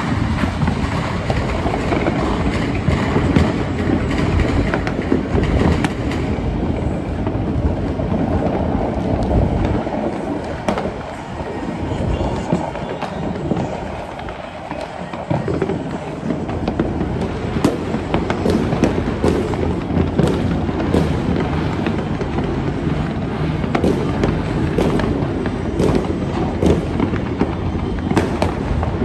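Many fireworks and firecrackers going off at once, their overlapping bangs running together into a continuous rumble. It eases briefly mid-way, then sharp cracks and pops stand out through the second half.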